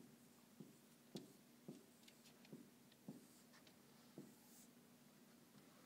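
Felt-tip marker writing on a whiteboard: faint light taps and scratches, about one every half second, as each stroke of the letters goes down.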